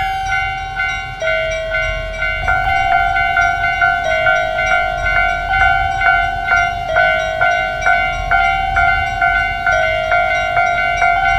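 Japanese railroad crossing warning bell ringing steadily at about two to three strikes a second, its pitch stepping slightly up and down every second or so, over a low rumble.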